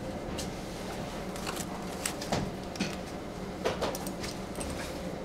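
Small scattered clicks and rustles of test leads and clips being handled and attached to the terminals of a wirewound power resistor, over a steady faint hum.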